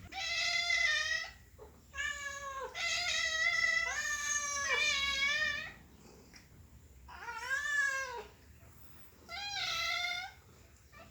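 Domestic cat meowing over and over: about five meows, the middle one long and drawn out, each bending up and down in pitch.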